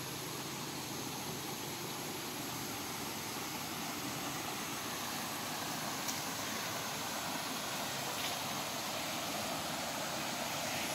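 Steady rushing of a shallow creek flowing over stones, gradually getting louder.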